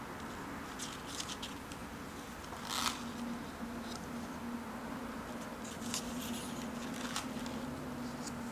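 Paper pages of a spiral-bound sketchbook being handled and turned: a few short rustles and flicks, the loudest about three seconds in, over a faint steady hum.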